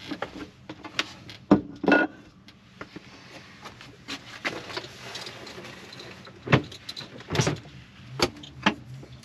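A string of sharp knocks and clicks, about half a dozen, with quiet between them, the loudest about a second and a half in and again about six and a half seconds in. A low steady hum begins near the end.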